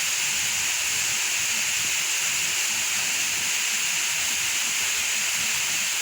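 Steady, unbroken rushing hiss of falling water from a waterfall and its stream.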